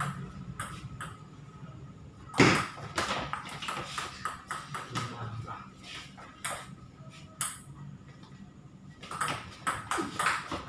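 Celluloid-type table tennis ball clicking off paddles and bouncing on a Tibhar table during rallies. The clicks are spaced unevenly, with one loud hit about two and a half seconds in and a quick run of hits near the end.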